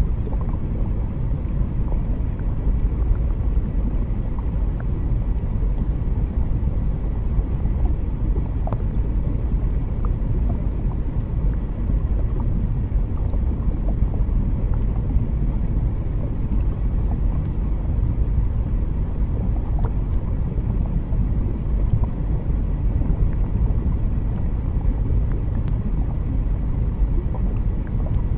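Steady, deep underwater rumble ambience, with a few faint scattered ticks.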